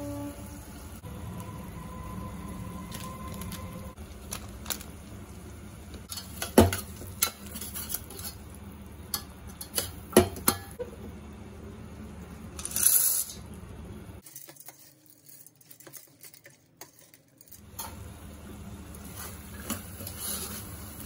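A steel ladle scraping and clinking against the inside of a stainless-steel pressure cooker as a thick masala is stirred, with sharp clinks about six and a half and ten seconds in, over a steady low hum. A short rush of noise comes around thirteen seconds, then it goes nearly quiet for about three seconds.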